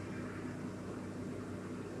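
Steady low hum and hiss of background room noise, with no distinct strokes or knocks.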